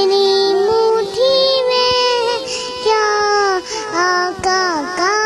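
A little girl singing a naat in a high voice. She holds long notes at first, then from about four seconds in sings quick, wavering ornamented turns.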